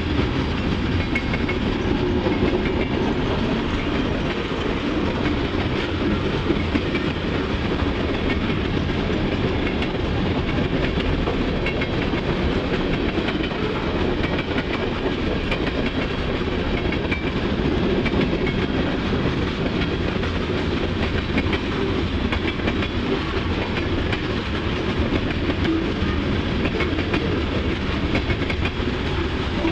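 Freight cars (covered hoppers and tank cars) rolling steadily past: a continuous rumble and clatter of steel wheels on the rails.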